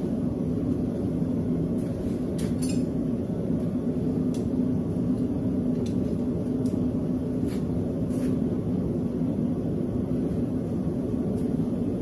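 Steady low rumble of running shop equipment, with a few faint, light metallic clinks of steel tongs and a hot workpiece being set on an anvil.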